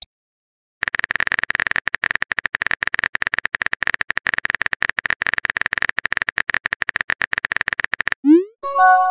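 Synthetic phone-keyboard typing clicks in a fast, continuous run for about seven seconds. Near the end come a short rising blip and a chime of several notes: the sound effects of a chat message being sent.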